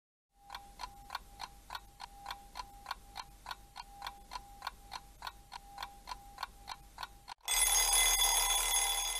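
Countdown-timer sound effect: a clock ticking evenly, about three ticks a second. Near the end it gives way to a louder alarm-clock bell ringing for about two seconds as the timer runs out.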